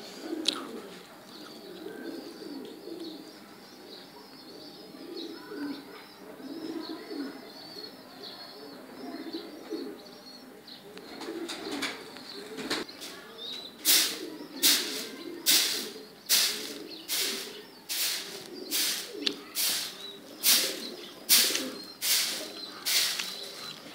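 A flock of domestic pigeons cooing continuously while feeding. From about halfway through, a regular series of short swishing strokes, a little over one a second, is louder than the cooing.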